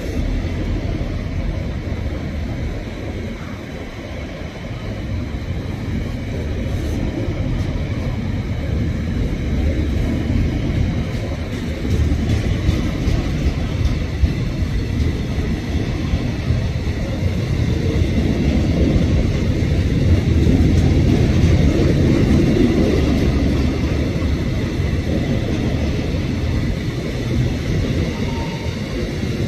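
Freight train of flat wagons loaded with steel rolling past, a steady rumble of wheels on rails that grows louder about halfway through.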